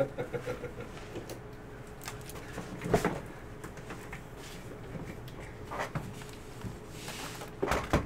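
Scattered knocks and clatter of handling, the loudest cluster near the end as a sealed cardboard hobby box of trading cards is picked up and set down on the table, over a faint steady hum.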